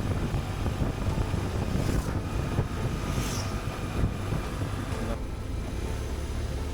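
Motorcycle on the move: wind rushing over the microphone over the low steady drone of the engine and road. About five seconds in the hiss of the wind falls away, leaving the low drone.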